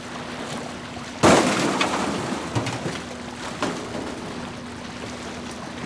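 Wind and water noise with a steady low hum underneath; a sudden loud rush comes about a second in and gradually fades.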